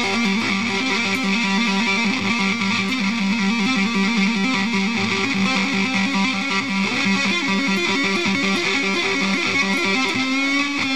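Stratocaster electric guitar through a Shrimp Pistol Stun germanium fuzz pedal: a sustained fuzzed note trilled rapidly between two pitches, held into feedback, sliding up to a higher held note near the end.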